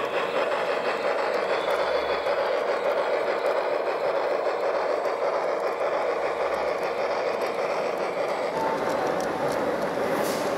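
An LGB large-scale model steam locomotive with its coaches running along the track, giving a steady, even hum from its drive and rolling wheels.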